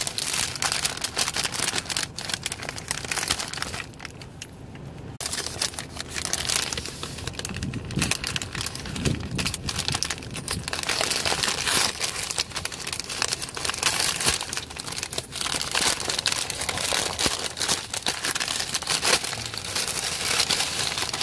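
Paper deli bag and sub sandwich wrapper crinkling and rustling as hands handle and open them, in irregular bursts with a quieter pause about four seconds in.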